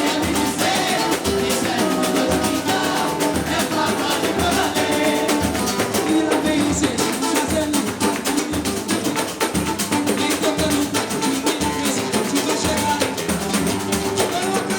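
Samba band playing with singing over a steady low drum beat.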